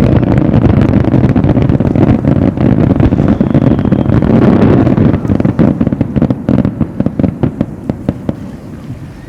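Fireworks display: a dense barrage of booming bursts that merge into a continuous rumble, then, from about halfway, a run of sharp cracks that thin out and fade away.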